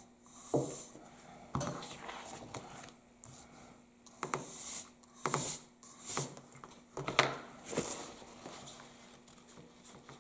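Irregular rubbing and scratching with a few light knocks: hands and a small tool handling a painting panel on a tabletop.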